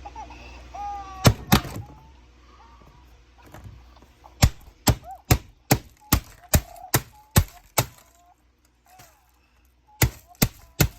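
Repeated hard whacks, as from something being struck over and over: two loud blows, then a fast run at about two to three a second, and another run near the end. Faint wavering tones sound between the blows.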